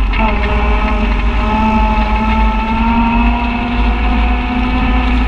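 Side-by-side UTV engine running at steady part throttle, heard from on board. The engine note dips briefly at the start, then climbs slowly and holds, over a constant low rumble.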